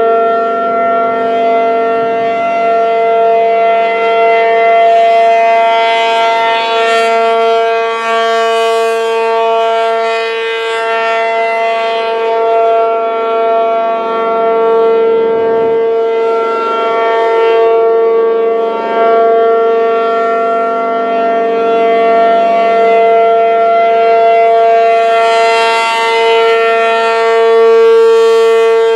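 P-50 outdoor warning siren sounding a steady tone with several pitches at once, swelling and fading about every nine seconds. It is stuck on and will not shut off, a malfunction put down to a welded relay.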